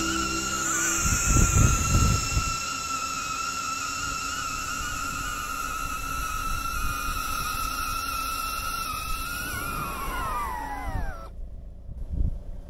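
DJI Avata FPV drone's propellers whining at a steady, slightly wavering pitch, with low wind buffeting in the first few seconds. About ten seconds in the whine falls in pitch and then cuts off suddenly as the motors spin down and stop at landing.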